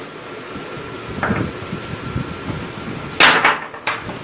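Wooden rolling pin knocking against a round wooden pastry board while dough is rolled out: a light knock about a second in, then three sharper knocks close together near the end.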